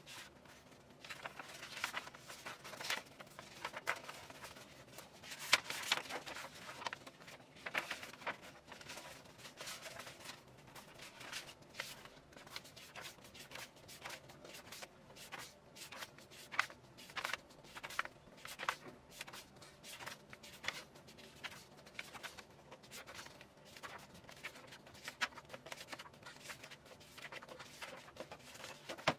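Paper pages of a handmade photobook turned by hand one after another: rustling paper and many quick, sharp flicks at an uneven pace.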